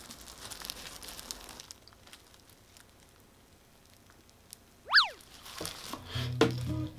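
Crisp crunching and crackling of a fried cheese dog's batter being chewed, fading after a second or two. About five seconds in comes a short, loud boing-like sound effect that sweeps up and back down in pitch, and background music comes back near the end.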